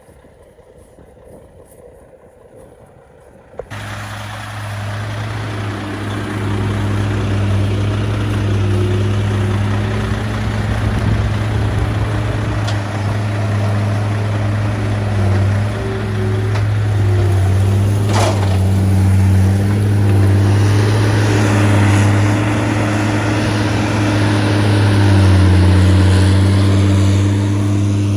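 Heavy vehicle engine running steadily at low revs, its pitch drifting slightly, coming in abruptly about four seconds in after a quieter, windy stretch. A single sharp click is heard around the middle.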